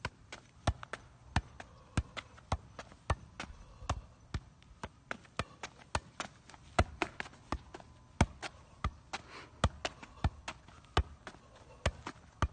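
A ball juggled keepy-uppy with the feet and knees: a sharp thump at each touch, about two a second, in a steady but slightly uneven rhythm.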